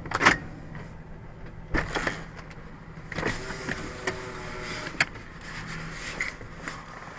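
Car engine idling steadily, with sharp clicks and knocks as the driver's door is unlatched and pushed open: one just after the start, another about two seconds in, and one about five seconds in.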